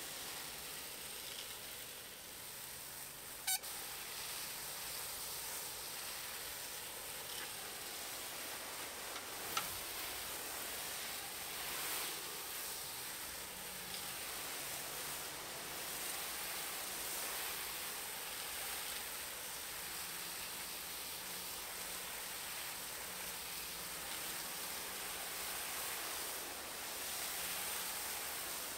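Garden hose spray wand hissing steadily as it showers water onto soil. Two short sharp clicks come early on, about six seconds apart.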